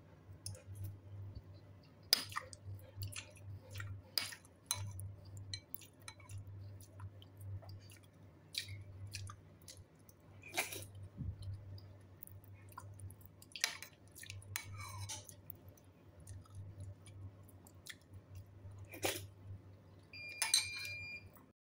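Someone chewing a mouthful of tofu soup with rice, with a metal spoon clicking against the bowl now and then over a steady low hum.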